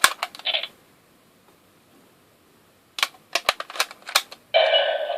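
Sharp plastic clicks of a Kyoryuger toy gun being worked as a Zyudenchi battery toy is loaded: a few clicks at the start, a pause, then a quick series of clicks. About four and a half seconds in, the toy's electronic voice and sound effect start through its small tinny speaker.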